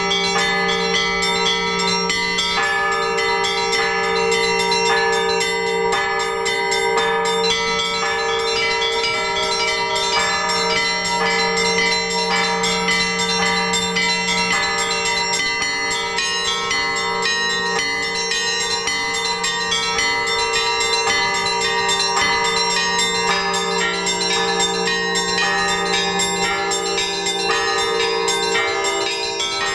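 Orthodox church bells ringing a trezvon: many bells sound together, the small bells chiming in a quick repeating pattern over the steady hum of the larger bells.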